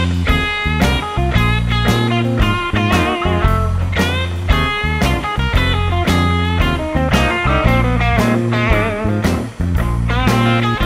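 Background music: guitar-led rock with a heavy bass line and a steady beat.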